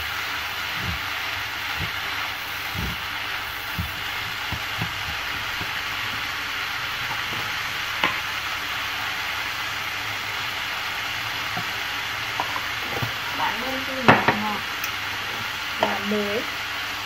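Onion, mustard greens and carrot sizzling steadily as they stir-fry in oil in a frying pan, with wooden chopsticks knocking against the pan during stirring in the first few seconds. A sharp knock and a few brief pitched sounds come near the end.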